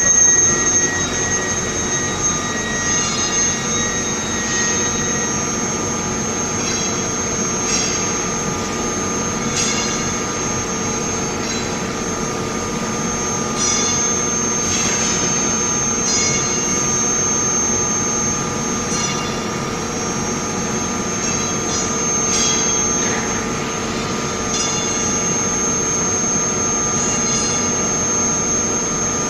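Induction heating furnace equipment running: a steady machine hum with a constant high-pitched whine, and short clicks or knocks every second or two.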